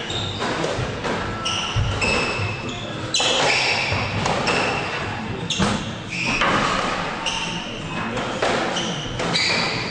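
A squash rally: the ball struck by racquets and hitting the court walls in repeated sharp knocks, with many short squeaks of players' shoes on the wooden court floor.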